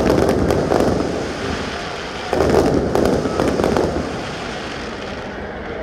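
Aerial fireworks bursting in two volleys: a run of sharp bangs with a rolling rumble right at the start, then another a little over two seconds in, each dying away after a second or so.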